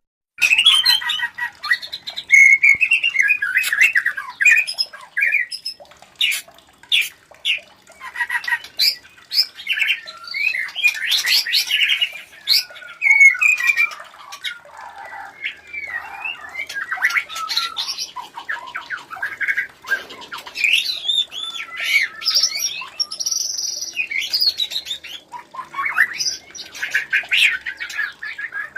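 White-rumped shamas calling while mating: a rapid, ever-changing stream of short notes and trills, with a few sharp clicks about six to seven seconds in.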